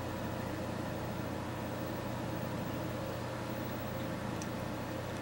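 Steady hum and whir of computer and electronics cooling fans, unchanging.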